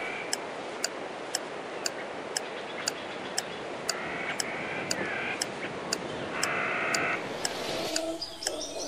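Countdown timer sound effect ticking steadily about twice a second over a steady background hiss. A few brief higher-pitched calls come in around four seconds in and again around six and a half seconds in.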